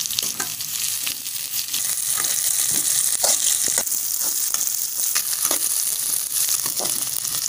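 Diced capsicum and sliced onions sizzling in hot oil in a metal pan, just after the capsicum goes in. A metal spoon stirs them, scraping and clinking against the pan again and again.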